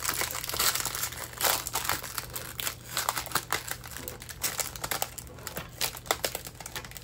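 Plastic packaging crinkling and crackling in irregular bursts as a rolled diamond painting canvas is unwrapped and handled.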